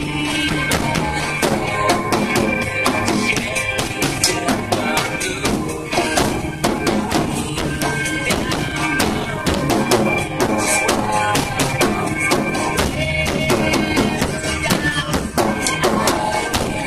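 Acoustic drum kit played with sticks along to a recorded song: a steady stream of sharp drum and cymbal hits, several a second, over the backing music.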